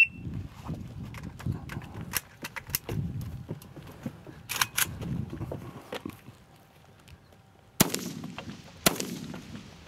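Rifle fire in a practical shooting stage: several fainter sharp cracks early on, then two loud rifle shots about a second apart near the end, each followed by a short echoing tail.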